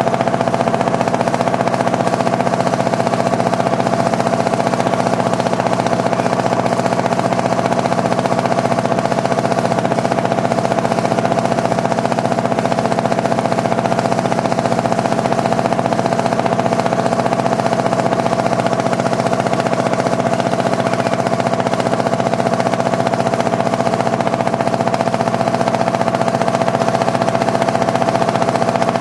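Motorboat engine running steadily at constant speed, a loud even drone with a rapid firing beat, heard from aboard the boat.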